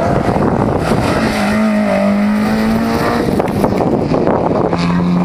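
A rally car driving past at speed, its engine note held steady, over a loud rush of noise. The engine tone comes through most clearly in the middle and again near the end.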